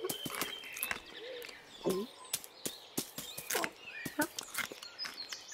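Cartoon foley of a countryside: scattered bird chirps and many sharp little clicks, with a few short voiced sounds that dip in pitch, about two seconds in and again towards the end.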